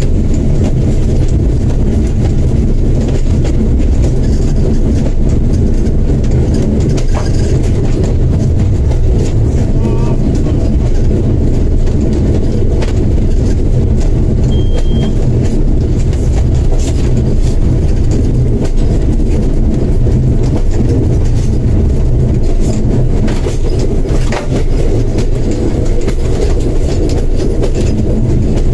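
A train running along the track, heard from the front of the train: a loud steady rumble with a few sharp clicks.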